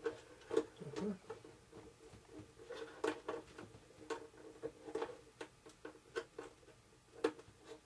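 Hand screwdriver driving a long screw into a servo mounting plate: a run of small irregular clicks and creaks, roughly two a second.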